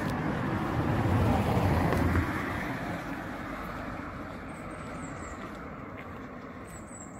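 A car passing on the road: a rumbling rush that swells to its loudest between one and two seconds in, then fades away.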